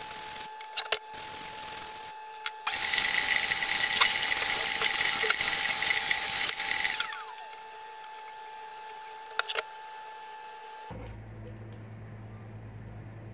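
Shop vacuum running, its hose nozzle sucking dust and loose char off a burnt wood board; the suction noise is much louder and hissier for about four seconds in the middle while the nozzle passes over the surface, with a few sharp clicks. About eleven seconds in it gives way to a low steady hum.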